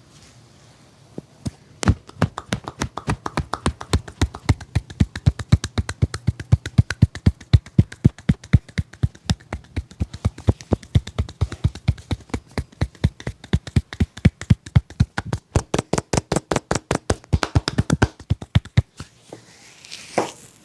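A barber's hands drumming a fast percussive massage, rapid rhythmic slaps several times a second. The slaps start about a second in, grow louder and sharper toward the end, then stop.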